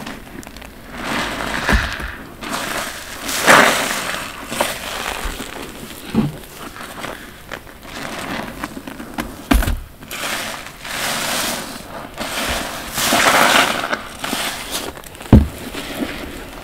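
Soapy, water-soaked bath sponges squeezed again and again by gloved hands: repeated squelching gushes of sudsy water with foam crackling, each lasting about a second, and a few sharp knocks in between.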